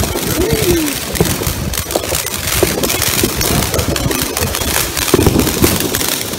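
Ground firework fountain hissing steadily and crackling as it sprays sparks.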